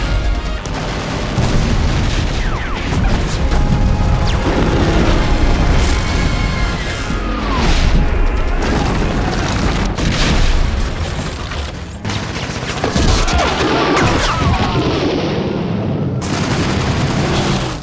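Film sound effects of an air raid: repeated heavy explosions and booms in a continuous din, with a music score running underneath.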